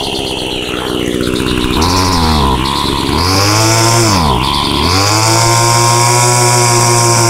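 Homelite two-stroke string trimmer engine, fitted with a swapped-on Ryobi muffler, running cold after a cold start. Its speed sags and picks back up a few times, then settles into a steady run about five seconds in while it warms up.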